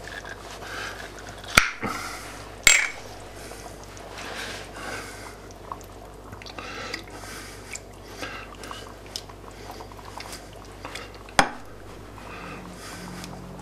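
Thick barbecue sauce pouring and dripping from an upturned bottle into a pot of soup. There are two sharp knocks or clicks about two seconds in and another near the end.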